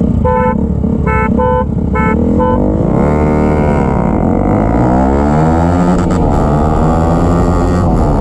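A vehicle horn beeps five short times, then two Bajaj Pulsar RS200 single-cylinder motorcycles accelerate hard off the line in a drag race. Their engine pitch climbs, drops back at each gear change and climbs again.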